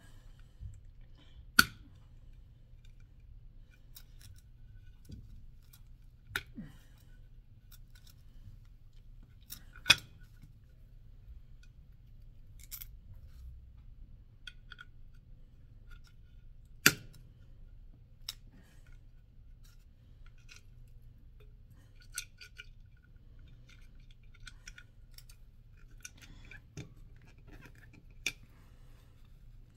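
Hand handling of bicycle seatpost parts and a small bolt: scattered sharp clicks and taps of plastic and metal pieces meeting, three of them much louder than the rest, over a faint low steady hum.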